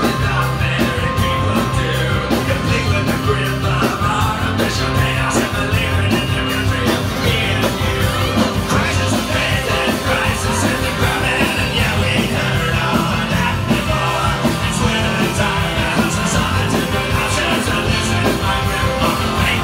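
Rock music with a steady beat and singing.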